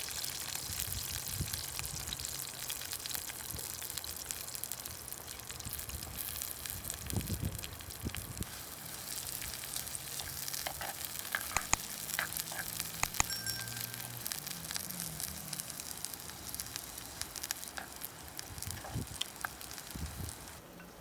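Food frying in hot oil in a pan, a steady sizzle, with a few sharp clicks near the middle.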